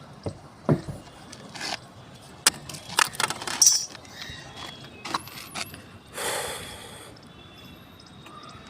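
Scattered clicks, knocks and scrapes of plumbing parts and tools being handled, with a short rush of noise about six seconds in.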